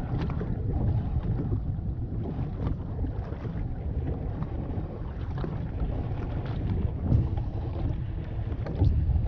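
Gusty wind buffeting the microphone, a steady low rumble, with small waves lapping against a bass boat's hull.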